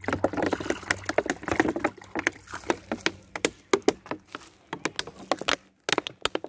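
Water poured from a plastic bottle into a clay saucer, splashing for about two seconds, followed by a run of short crisp clicks and crunches of footsteps over dry leaves on asphalt.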